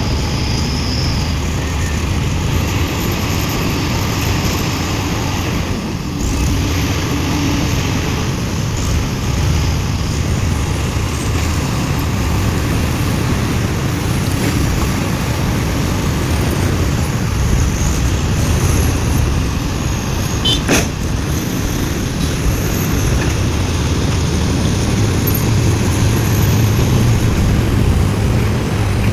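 Heavy diesel engines of a large excavator loading a dump truck: a steady low rumble that grows a little louder near the end, with a single sharp knock about twenty seconds in.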